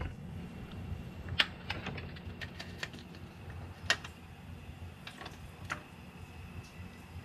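Scattered light clicks and taps from hands handling parts in an engine bay, about seven over several seconds, over a steady low hum.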